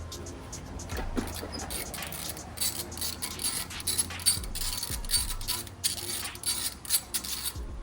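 Irregular metallic clicks and rattles of hand tools and parts being handled while working on a removed turbocharger.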